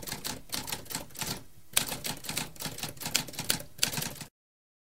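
Manual typewriter typing: rapid, irregular key clacks with a short pause about one and a half seconds in, cutting off abruptly about four seconds in.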